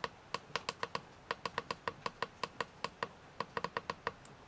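Push button on an XH-W3001 digital temperature controller clicking in a quick series, about six clicks a second in several runs, stopping about four seconds in. Each press steps the upper set point up a tenth of a degree towards 17 °C.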